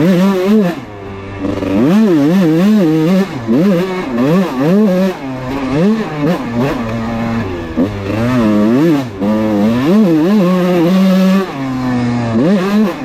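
Kawasaki KX125 two-stroke dirt bike engine being ridden, revving up and backing off over and over as the throttle is worked, with a short drop about a second in and a steadier high note near the end.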